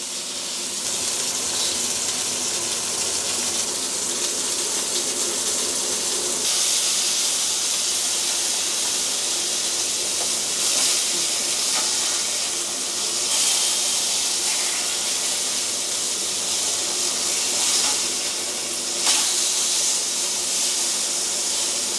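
Kangaroo burger patties sizzling in hot oil in a frying pan: a steady hiss that grows louder about six seconds in.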